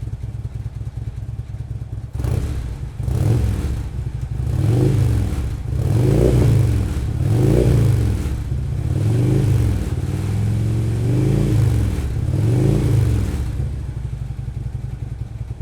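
Harley-Davidson touring bike's V-twin engine, through Vance & Hines Monster Oval slip-on mufflers, revved repeatedly while stationary. It idles for about two seconds, then gets about seven quick throttle blips, each rising and falling in pitch, and settles back to idle near the end.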